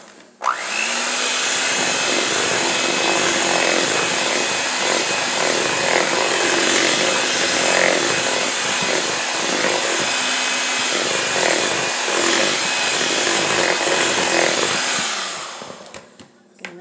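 Electric hand mixer with its beaters in a bowl of cake batter, beating in flour. The motor starts about half a second in with a quick rising whine, runs steadily, and winds down near the end.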